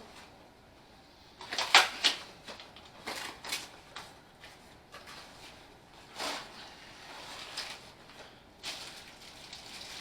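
Cardboard product box being opened and unpacked by hand: a run of short scrapes, tears and knocks of cardboard and packaging, the sharpest a little under two seconds in.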